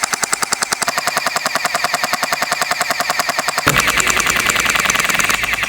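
Electric toy gel blaster firing on full auto: a fast, even stream of sharp mechanical clacks from its motor-driven gearbox as it shoots water-soaked gel beads, running without a break.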